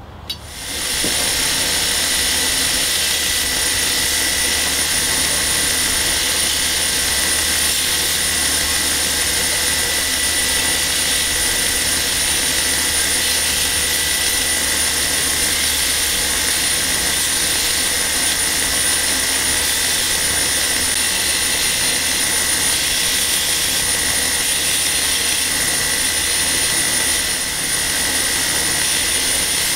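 Belt grinder running a 300-grit Trizact belt while a steel Bowie blade is ground against it. It comes up to full level in about the first second, then runs steadily with a high whine.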